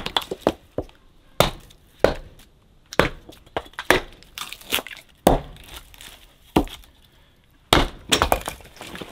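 Hatchet splitting wood into kindling on a wooden chopping block: sharp chops and cracks of the wood splitting, a strike every second or so, with lighter knocks between.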